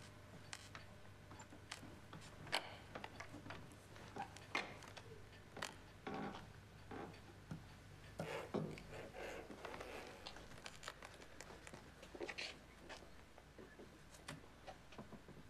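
A door handle clicking and the door creaking, with soft steps and rustling. The small knocks and clicks are faint and irregular.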